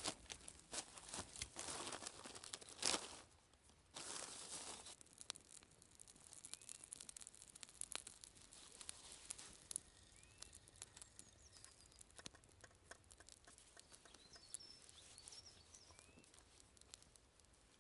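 Plastic rustling and crinkling for the first few seconds as fuel is handled. Then a small wood fire in a Firebox Nano folding stove crackles with sparse faint ticks.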